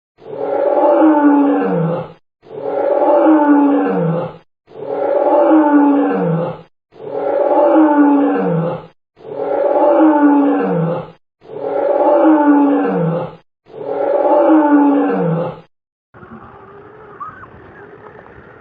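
Loud big-cat roar repeated seven times, identical each time, about two seconds per roar and ending in a falling growl. It gives way to a much quieter outdoor background with a few faint chirps near the end.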